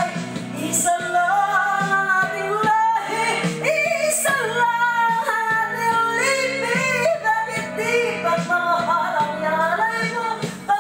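A woman belting out a song into a corded microphone over a karaoke backing track, her voice held in long, sustained phrases above the steady music.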